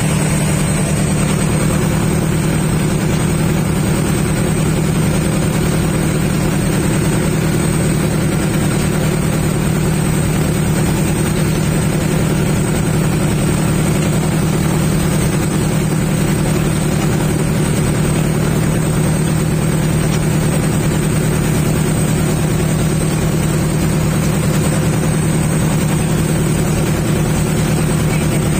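Fishing boat's engine running steadily under way, a constant low drone that does not change in pitch or loudness.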